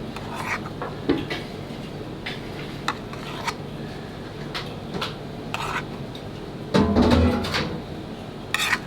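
Kitchen utensils clinking and tapping against dishes and pans while a plate is finished, with a heavier clatter about seven seconds in.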